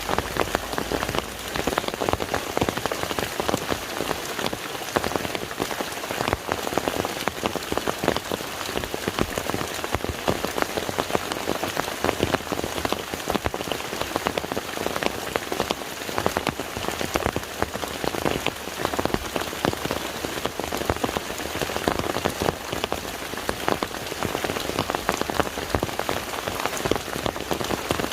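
Steady rain falling on a lake's water surface: a dense, even hiss of rain with countless individual drops ticking through it.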